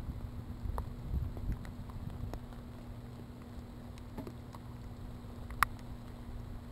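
Rain falling, scattered drops ticking, over a low rumble of wind on the microphone; one sharper click about five and a half seconds in.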